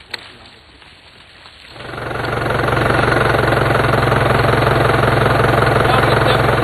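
An engine running, which comes up loud about two seconds in and then holds steady with a rapid, even low pulse.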